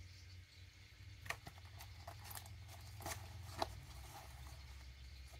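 Faint rustling and a few scattered light clicks of small items and packaging being handled and picked through, over a low steady hum.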